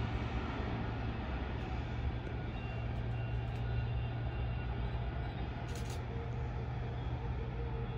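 Steady low rumble and hum of an approaching electric passenger train, heard over general outdoor noise.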